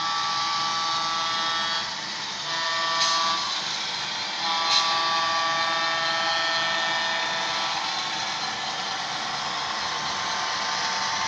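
Soundtraxx Tsunami 2 DCC sound decoder in an HO-scale Santa Fe FT diesel model sounding its multi-chime air horn through the model's small speaker: a long blast, a short one, then a longer one. Under the horn runs a steady diesel engine sound.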